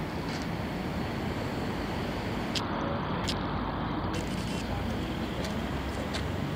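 Steady low rumble of an engine running, with a couple of faint clicks about two and a half and three seconds in.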